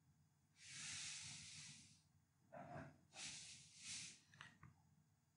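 Faint breathing close to a microphone: a long breath starting about half a second in and lasting about a second and a half, then a short breath and a longer one around three seconds in.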